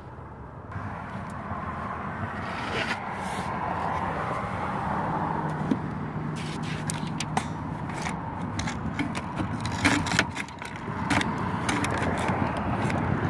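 Steady outdoor traffic noise rising over the first few seconds. In the second half come a run of sharp clicks and scrapes from the work at hand.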